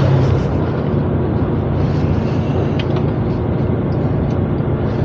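Motorhome driving, heard from inside the cab: a steady low engine hum over road and tyre noise.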